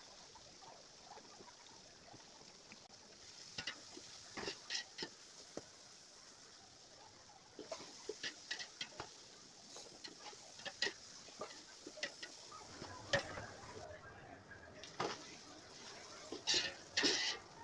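Metal slotted spoon scraping and tapping against an aluminium pot as sliced onions are stirred in hot oil: scattered short scrapes and clicks over a faint, steady frying hiss.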